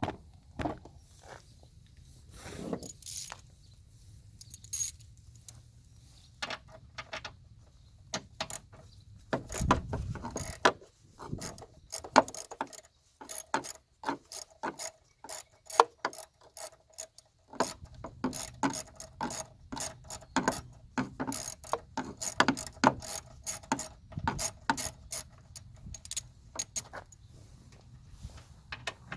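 Ratchet wrench clicking as 10 mm screws holding the air box are backed out: a few scattered clicks at first, then long runs of rapid clicking from about the middle on.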